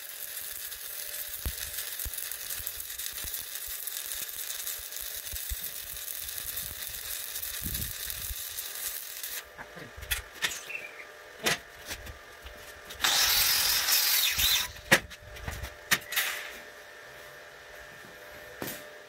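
Stick-welding arc with a 1/8-inch 7018 rod on steel plate, crackling and hissing steadily; it stops about nine and a half seconds in. After that come scattered knocks and a brief, harsh scraping hiss.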